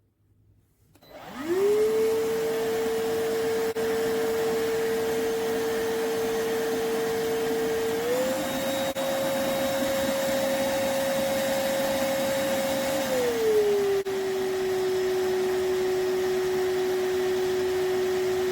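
Cordless stick vacuum cleaner switching on about a second in, its motor spinning up to a steady hum with a whirring airflow. About eight seconds in the motor pitch steps up, then around thirteen seconds it glides down to a lower steady pitch, rising again near the end.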